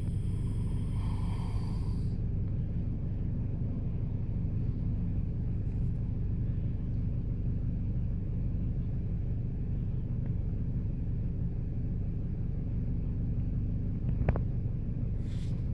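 Steady low engine rumble, an engine running at an even speed, with one short click near the end.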